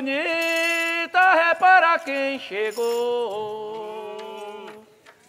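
A single voice singing or chanting long held, sliding notes with no clear words: a high note held about a second, then shorter rising phrases, then a long lower note that fades out near the end.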